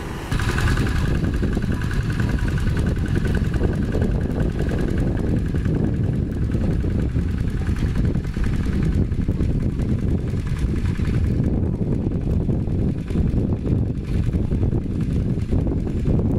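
Two-wheel walking tractor's single-cylinder diesel engine running steadily under load as it pulls its cage wheels through a flooded rice paddy.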